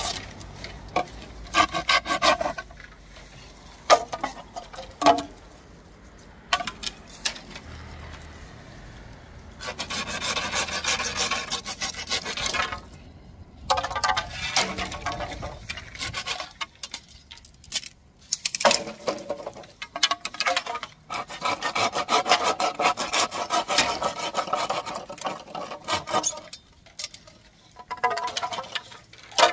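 Hand pruning saw cutting through bamboo poles in several bouts of quick back-and-forth strokes. Short knocks come in the first few seconds, before the longer sawing bouts.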